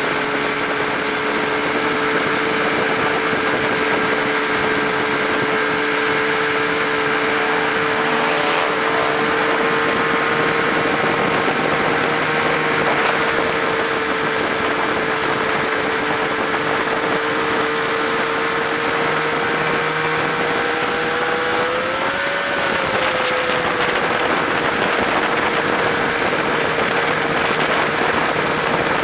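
600cc snowmobile engine in a mini buggy running at a steady, nearly constant speed, with a brief rise and fall in pitch late on.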